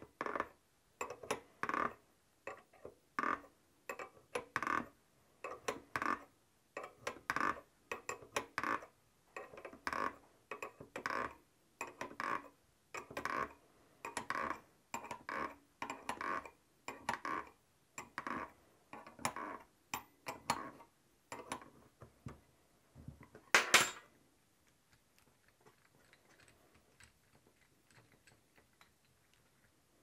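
A wrench turning the forcing screw of a three-jaw puller in short clicking strokes, about three every two seconds, as it pulls the old ball bearing off a steering rack pinion. Near the end comes one loud sharp crack, the press-fit bearing breaking free on the shaft.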